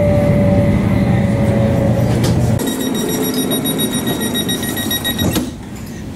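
Cabin sound of an electric commuter train running, a low rumble with a slowly falling whine. After a cut, the train's door warning beeps rapidly and high-pitched for about three seconds, ending with a thump as the doors shut.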